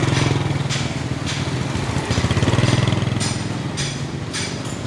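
Small motorbike engine idling steadily, swelling a little about halfway through, with a few light clicks.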